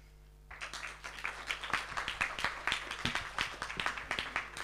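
Audience applauding, many hands clapping, starting about half a second in.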